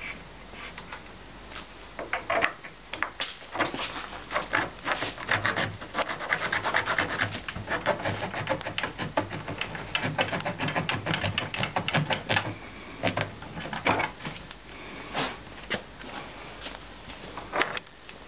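Rapid small clicks, knocks and rubbing as hands handle screws and fit the bunk bed's panels, busiest in the middle and thinning out near the end.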